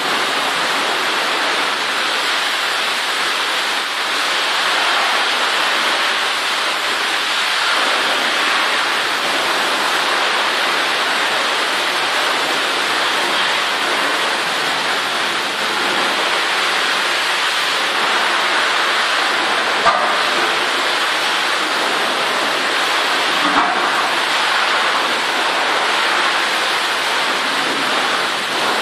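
A steady, loud hiss like heavy rain, with two faint knocks late on.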